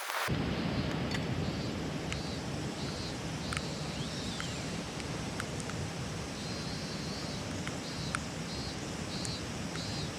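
Outdoor ambience: a steady wind rumble on the microphone, with short high-pitched chirps repeating in small groups and a few scattered light ticks.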